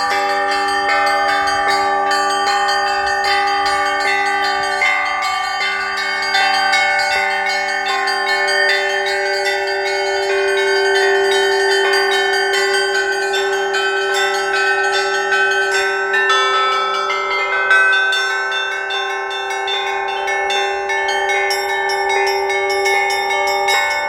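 Russian bell ringing (zvon): a set of church bells struck in quick succession, their tones overlapping into a dense, continuous peal, played together with bila, hanging plates struck with mallets.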